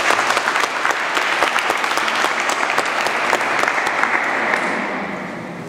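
Audience applauding with many hands clapping, loud at first and fading away near the end.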